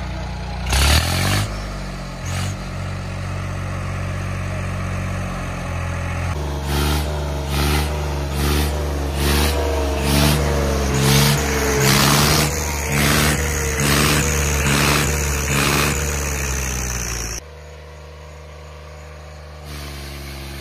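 Swaraj 855 FE tractor's three-cylinder diesel engine running hard under load, straining to pull a loaded sugarcane trolley out of a pit. From about six seconds in, a regular pulsing rhythm with a wavering tone rides over the engine. It stops abruptly a few seconds before the end, leaving a quieter engine note.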